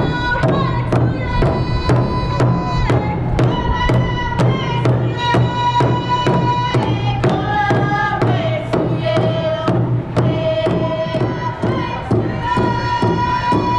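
A large rawhide drum struck in a steady, even beat, with high singing voices holding long notes over it and stepping between a few pitches.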